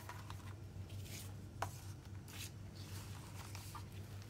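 Paper album packaging being handled by hand: soft rustling and sliding of a booklet and card over crumpled paper, with a sharp tap about a second and a half in. A low steady hum runs underneath.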